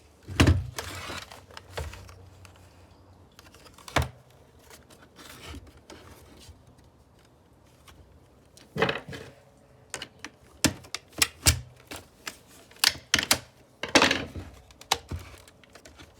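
Sharp plastic clicks and knocks from handling and pulling at a handheld vacuum's plastic housing, with its screws out. The taps are scattered at first and come more quickly in the last few seconds.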